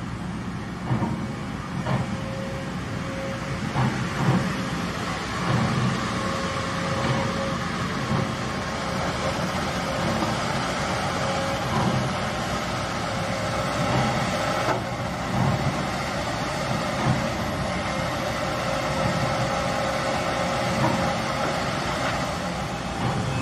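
Kobelco hydraulic excavator's diesel engine running steadily as it digs, with a few short knocks along the way.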